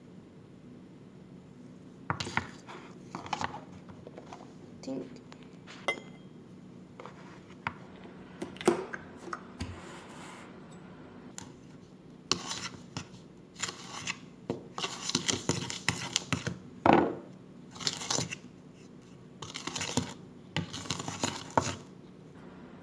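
Kitchen utensils and dishes clattering and scraping in irregular knocks while pancake batter ingredients are got ready, busiest in the second half.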